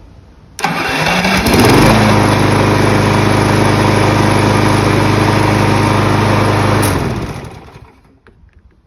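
Craftsman lawn mower's single-cylinder gasoline engine electric-started: a brief burst of cranking with rising pitch, the engine catches within about a second and runs steadily for about five seconds, then stops and winds down.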